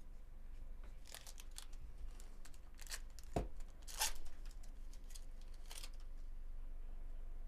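A foil trading-card pack being torn open by hand, the wrapper crackling and crinkling in a string of short rips, the strongest about four seconds in. A dull thump comes just before it.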